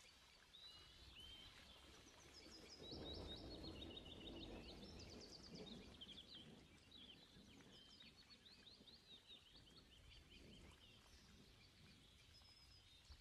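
Faint songbird chirping and twittering in quick runs of high notes, with a soft rustle about three seconds in.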